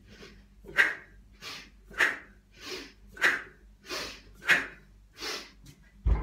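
A woman's forceful breathing during two-kettlebell suitcase swings: a strong inhale through the nose as the bells are hiked back and a hard exhale through the mouth as they are driven forward, a rep about every 1.2 seconds. Near the end comes a dull thump as the kettlebells are set down on the floor.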